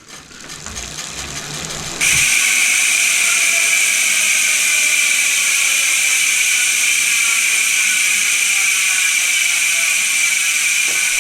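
JGbike rear hub freehub buzzing as the bicycle's rear wheel coasts: the pawls click so fast they merge into a loud, steady buzz. It comes in suddenly about two seconds in, after a quieter rising whir as the wheel is spun up, and drops slowly in pitch as the wheel slows.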